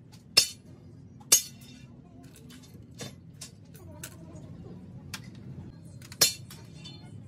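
Loose steel gears and roller bearings clinking against each other and a metal pan as they are picked over: several separate sharp metallic clinks, the loudest about a second in and another near the end.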